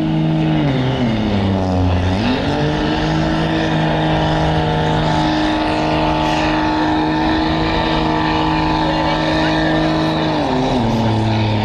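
Lifted truck's engine held at high revs during a burnout, with the tires spinning against the pavement. The revs dip about a second in, climb back and hold steady, then drop near the end.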